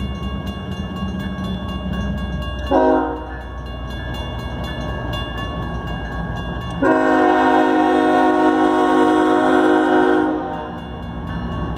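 Canadian Pacific diesel freight locomotive sounding its air horn for the grade crossing: a short blast about three seconds in, then a long blast of several seconds, the close of the crossing horn signal. Under it the crossing's mechanical bell rings steadily, and the locomotive's low engine rumble is heard early on.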